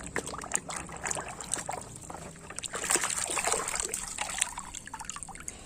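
Water trickling and splashing as a toy vehicle is washed, with many small irregular taps and splashes, busiest around the middle.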